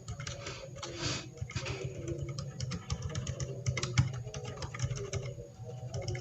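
Typing on a DA Meca 6 Plus mechanical keyboard fitted with Outemu silent switches: a quick, irregular run of fairly quiet key presses.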